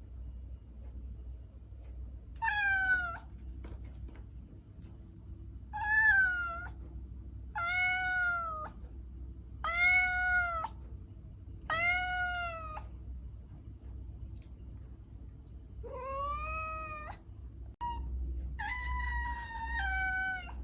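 A domestic cat meowing: about seven separate high-pitched meows, each about a second long and rising then falling in pitch, with gaps of one to four seconds between them. A faint steady low hum lies underneath.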